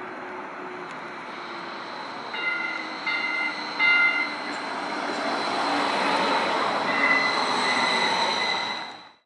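Electric streetcar approaching and passing close by on street track. About two and a half seconds in it sounds its warning bell three times in quick succession. Its running noise and a steady high wheel squeal then swell as it goes by, before the sound cuts off suddenly near the end.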